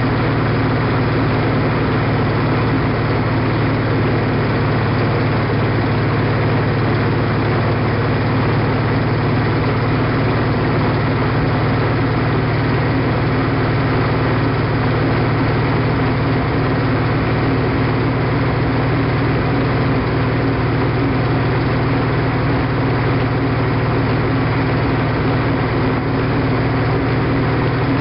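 Old truck engine running steadily at an even speed, driving the blade of a papercrete mixer through a tank of thick paper-and-cement slurry.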